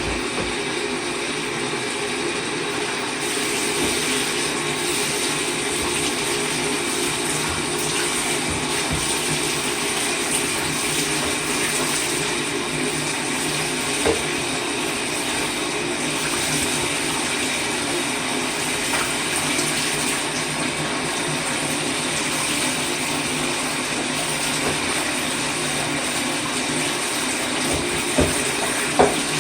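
Tap water running steadily into a tub, rinsing a dirt-caked vacuum cleaner part under the stream. There is one brief knock about halfway through.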